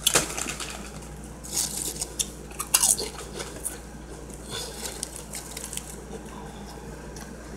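Quiet eating and food-handling noises at a table: scattered light clicks and rustles a few times a second apart, over a low steady hum.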